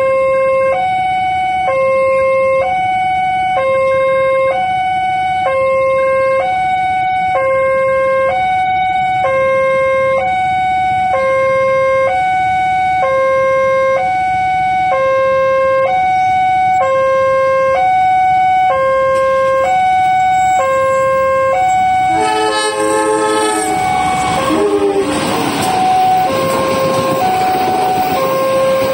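Railway level-crossing alarm of the old PCL 138 type, an electronic two-tone sounding steadily low-high, low-high, switching about every half second or so. About 22 seconds in, a train horn sounds briefly. A passenger train then passes close by with a broad rumble and rush of wheels on rails, while the alarm keeps going under it.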